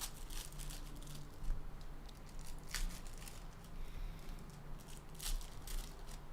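Trading card packs and cards being handled: foil wrappers crinkling and tearing, with cards sliding and tapping in short scattered rustles. A low steady hum runs underneath.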